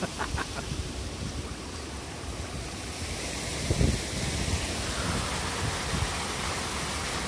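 Steady rush of rain-swollen flowing water, with wind on the microphone; the water grows louder about five seconds in. A few low thumps, footsteps on wooden boardwalk planks, come near the start and just before four seconds.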